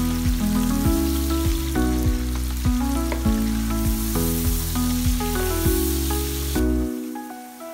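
Sliced onions frying in hot oil in a pan, a steady sizzle while they are stirred with a wooden spatula, over background music with a steady beat and bass line. The sizzle cuts off sharply near the end, and the music dips in level just after.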